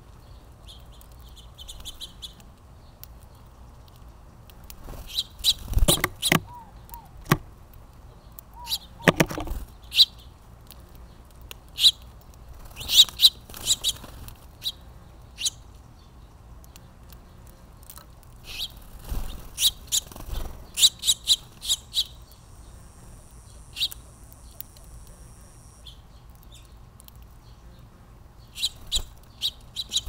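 Short, sharp chirps from house finches at a seed feeder, coming in scattered clusters, with now and then a low flutter of wings as a bird lands or leaves. A thin, steady high buzz holds for about three seconds past the middle.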